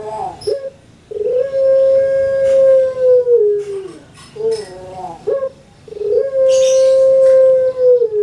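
Caged collared dove (puter) cooing twice. Each call is a few short broken notes followed by one long drawn-out coo of about three seconds that drops in pitch at the end. This is the long melodious coo that keepers prize in a pelung-type dove.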